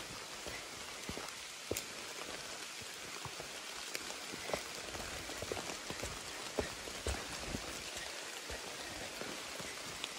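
Rain falling steadily: an even hiss with many irregular, sharper drop taps.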